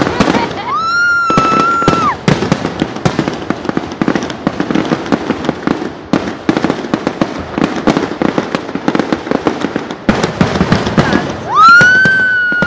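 Fireworks display going off: rapid crackling and popping of bursts throughout. Two whistles rise and then hold a steady pitch for about a second and a half each, one near the start and a louder one near the end.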